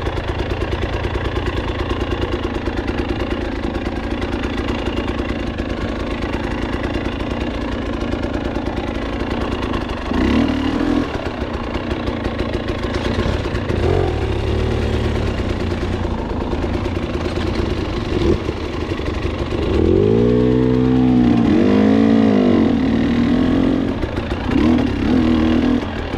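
KTM 300 XC two-stroke dirt-bike engine running steadily at low revs, then blipped up and down several times from about ten seconds in, with a longer run of rising and falling revs about twenty seconds in.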